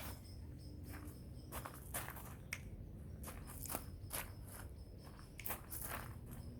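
Footsteps crunching lightly on the ground, an irregular run of short crunches and clicks a few per second, over a low steady rumble.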